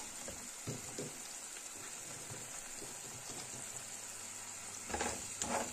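Blue crab pieces sizzling steadily in a pot of prosecco-wetted sauce, an even hiss. Near the end come a few sharp knocks.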